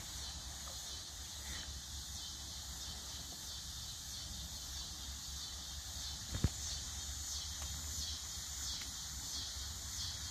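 Insect chorus from riverside trees: a steady high buzz that pulses a little under twice a second, over a low steady rumble, with a single thump a little past halfway.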